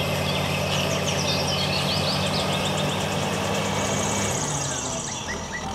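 Caterpillar crawler bulldozer's diesel engine running steadily as it pushes dirt, its pitch dropping a little about four seconds in. Short high chirps sound over it.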